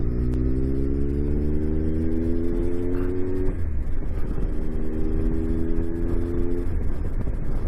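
Triumph Tiger 1200's three-cylinder engine pulling under way, its note climbing steadily, breaking off for a gear change about three and a half seconds in, then climbing again before the throttle eases off near the end, over a steady low rumble.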